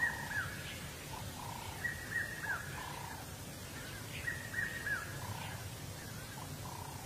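A bird singing a short phrase of whistled notes with falling, hooked ends, repeated about three times, over quiet, even natural background sound.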